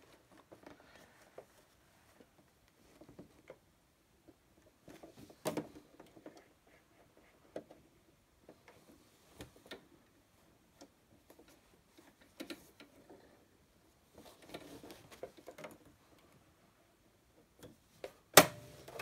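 Quiet handling of a uniform at a Brother sewing machine: scattered light clicks and brief rustles of fabric, with one sharp, much louder click near the end.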